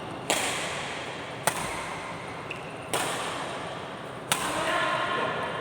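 Four sharp racket strikes in a doubles rally, one about every 1.4 seconds, each with a short ringing tail.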